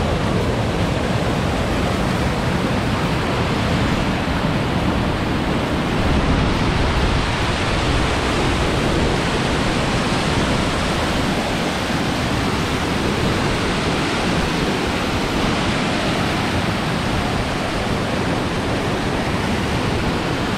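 Whitewater pouring down small rocky waterfalls and cascades: a loud, steady rush of water.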